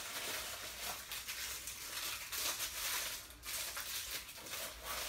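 Packaging rustling and crinkling in irregular bursts as a statue piece is pulled out of its wrapping.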